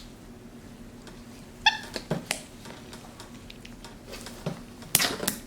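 Capuchin monkey giving a short, high-pitched squeak about a second and a half in, with a few sharp smacks from handling the slime near the end.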